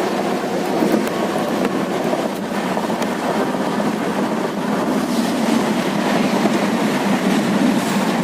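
Train running along the track, a steady noise with no distinct beats.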